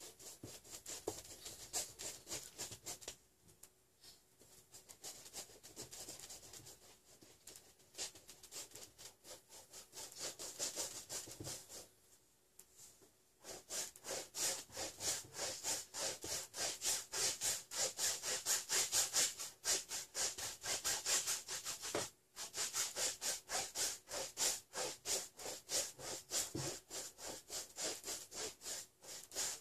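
Paintbrush scrubbing paint onto a large stretched canvas in quick back-and-forth strokes, many a second, with a hissy, scratchy edge. The strokes are lighter and broken by pauses at first, then go on steady and louder from about halfway through, with one short break near three-quarters.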